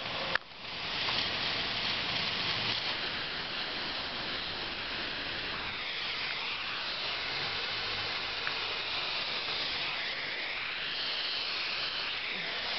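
Water spraying from an MP 2000 rotating nozzle on a pop-up sprinkler head: a steady hiss of water jets. One sharp knock about half a second in.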